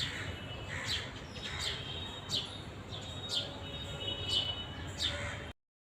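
Birds chirping: short calls that fall in pitch, about one a second, over a low background hum. The sound cuts off suddenly near the end.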